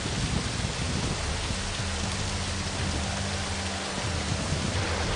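Heavy rain falling, a steady even hiss, with a low hum underneath.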